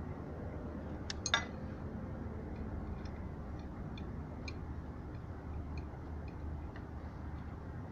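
A single sharp clink of hard objects knocking together about a second in, then faint scattered light ticks, over a steady low hum.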